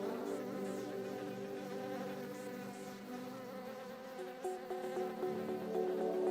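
Steady buzzing hum of a flying insect's wings.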